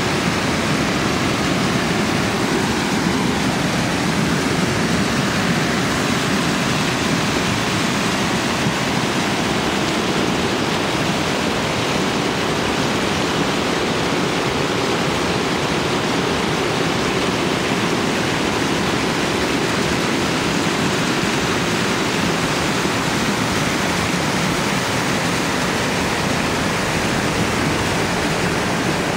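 Small waterfall on a mountain river: water falling and rushing in a steady, loud splashing rush.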